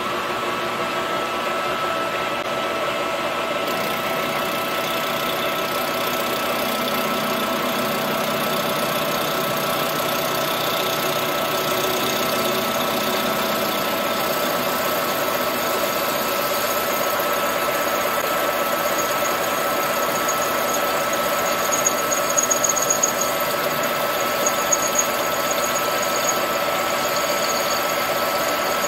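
Colchester Master lathe running in gear, its gearing giving a steady whine, while it turns a chainsaw cylinder held in a four-jaw chuck. About four seconds in, a hiss joins as the tool takes a light cut on the cylinder, and near the end a thin high squeal comes and goes.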